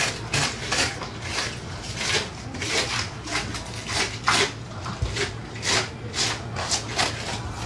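Knife slicing along a large arapaima, cutting the thick scaled skin away from the flesh: short rasping strokes about twice a second, over a low steady hum.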